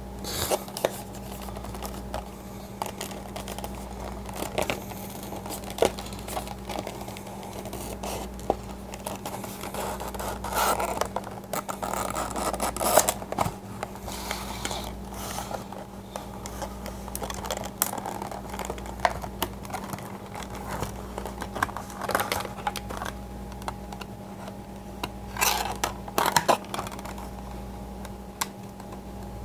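Clear plastic blister packaging and a cardboard box being handled: irregular crinkling, scraping and clicking of the plastic, with louder rustling bursts twice.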